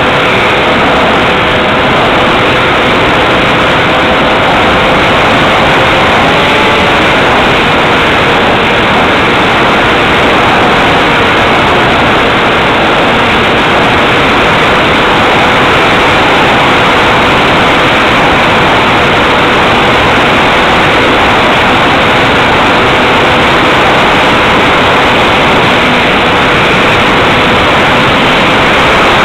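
Onboard sound of a Multiplex Xeno FPV model plane in flight: its electric motor and propeller, with a steady rush of airflow over the microphone and a faint steady whine running through it.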